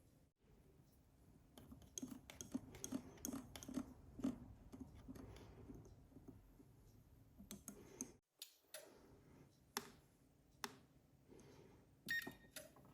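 Faint kitchen handling: scattered sharp clicks and taps of utensils, with a run of soft, evenly spaced strokes about two to four and a half seconds in.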